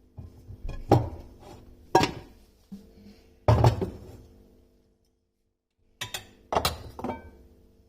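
Kitchen clatter: dishes and utensils being set down and knocked together, a handful of sharp clinks and knocks with short ringing.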